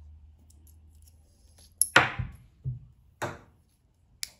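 Handling clatter of small plastic sewing parts, a bobbin and thread spool, at a sewing machine's bobbin winder: about five sharp clicks and knocks, the loudest about two seconds in.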